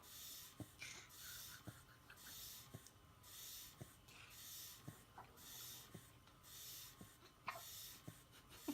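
Baby hiccuping softly, a short faint hiccup about once a second, eight in all.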